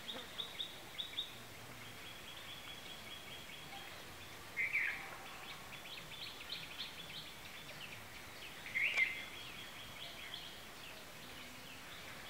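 Birds calling in a rural outdoor background: runs of rapid, high-pitched chattering notes come and go, and two louder short calls come about five and nine seconds in.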